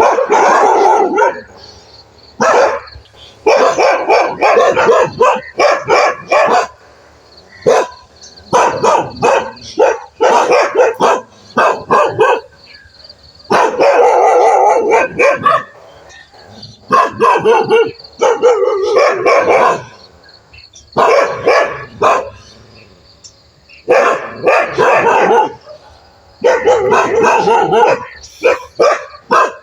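Dog barking in repeated bouts of rapid barks, each bout lasting one to two seconds with short pauses between.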